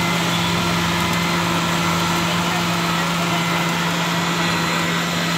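Electric blender (a countertop mixer-grinder) running at a steady high speed, blending a jar of cold coffee, its motor giving a strong steady hum under a loud whirring hiss.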